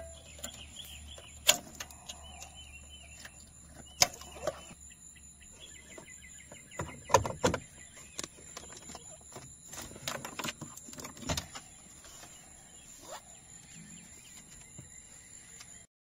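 Clicks, knocks and sharp plastic snaps from hands unplugging wiring connectors at the back of a car radio and prying plastic dash trim with a trim tool. The sharpest snaps come about a second and a half, four and seven seconds in, over a faint high-pitched whine.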